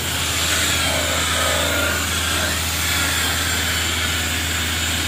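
Handheld electric rotary car polisher running steadily, its foam pad buffing the painted tailgate.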